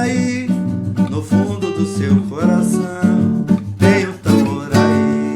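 Music: acoustic guitar strummed with a bass line in the instrumental ending of a song.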